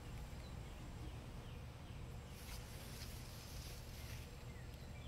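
Quiet outdoor garden ambience: a steady low rumble, a few faint bird chirps, and brief rustles of leaves being handled about two and a half and three and a half seconds in.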